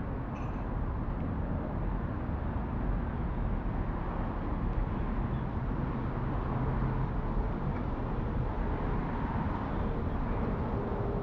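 Steady city street ambience, mostly a low rumble of passing traffic.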